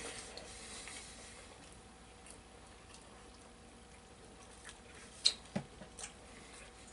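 Quiet room with faint sounds of people eating and drinking, and a few light clicks a little after five seconds in.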